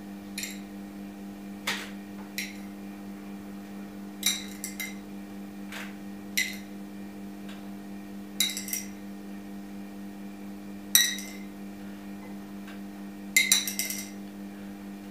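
Glass jars clinking as a small utensil taps against their rims to knock tomato seeds into the solutions: short ringing clinks at irregular intervals, a quick flurry of them near the end. A steady low hum runs underneath.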